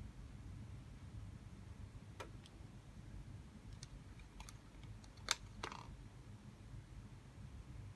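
A few sparse light clicks and taps over a low hum. The sharpest click comes about five seconds in, with a second one right after it.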